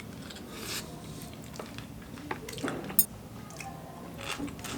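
Light handling noises: scattered soft clicks and a brief rustle, with one sharp click about three seconds in.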